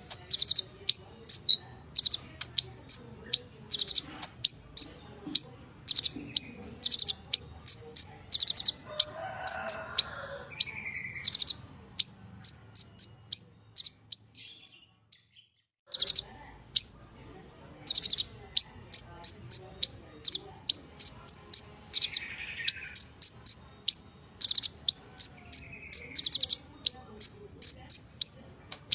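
Purple-throated sunbird (kolibri ninja) singing a fast, loud run of high, sharp chirps and short trills, with a pause of about two seconds near the middle.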